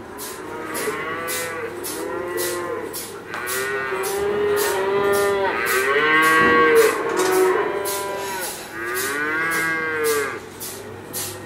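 Several cows mooing: about six long calls in turn, rising and falling in pitch, some overlapping, the loudest around the middle. A fast, faint, regular ticking runs underneath, about three a second.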